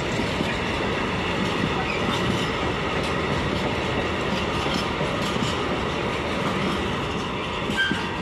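Freight train of container flat wagons rolling past close by: a steady rumble and rolling rail noise with scattered wheel clicks, and a short squeal near the end.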